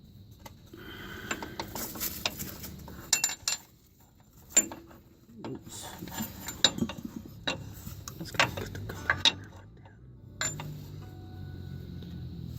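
Hand tools clicking and knocking against metal on a car's front suspension: a run of irregular sharp clicks and clanks, with a brief lull about four seconds in.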